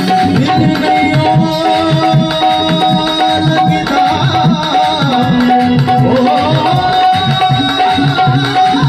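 Tabla played in a quick, steady rhythm under sustained electronic keyboard notes: an instrumental passage of a Hindi bhajan.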